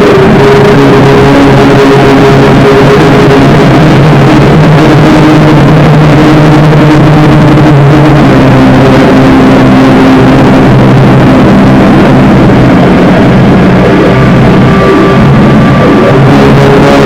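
Drone/noise-metal music: a dense, very loud wall of noisy sound with long held low notes that shift to new pitches every few seconds.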